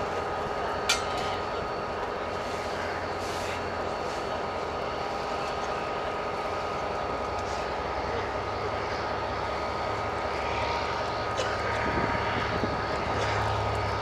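EMD GT22 diesel-electric locomotive running as it approaches: a steady drone, its low rumble growing stronger about halfway through and again near the end. A single sharp click about a second in.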